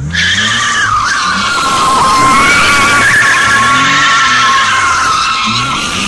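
Rear tyres of a BMW E46 330Ci squealing continuously as the car spins donuts, starting suddenly at full volume. Beneath the squeal the 3.0-litre straight-six engine revs up and down. The two rear wheels are being spun under power with a newly fitted locking differential insert.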